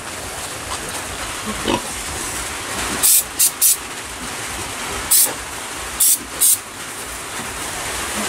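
Aerosol can of purple antiseptic wound spray hissing in six short squirts onto a sow's sore ear: three quick ones about three seconds in, then three more spread over the next few seconds.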